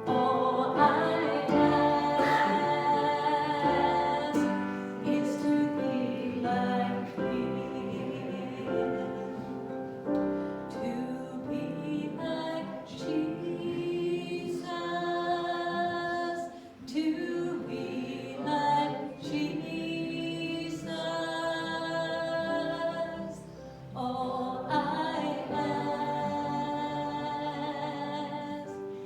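A group of voices singing a worship song with musical backing, the phrases breaking off briefly twice.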